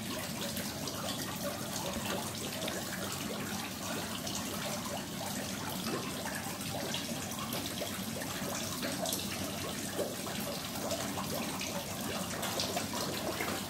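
Koi splashing and slurping at the surface of a pond as they crowd in to feed, the water churning steadily with many small splashes and pops.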